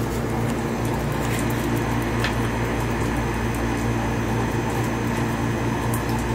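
Steady low machine hum, with a few faint ticks.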